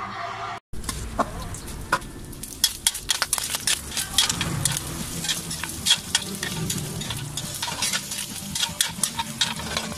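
Pork pieces sizzling and crackling in hot fat in an aluminium wok, with a metal spatula scraping and clinking against the pan as they are stirred. There is a brief gap in the sound near the start.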